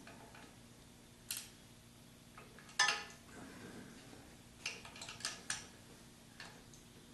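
Flex-head wrench working the lower alternator bracket bolt: scattered metallic clinks and taps of the wrench against the bolt and bracket. The loudest comes about three seconds in and rings briefly, and a quick run of clicks follows around five seconds in.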